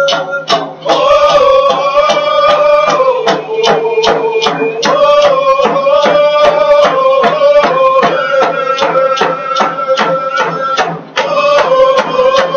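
A man singing a song in long held notes that step up and down in pitch, over a steady beat of about three strikes a second. The singing breaks briefly near the start and again at about 11 s.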